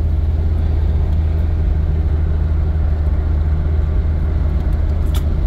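1988 Jeep Cherokee XJ's engine and exhaust droning steadily while cruising, heard from inside the cab. The exhaust pipe has a hole freshly patched with tape, and the manifolds are cracked.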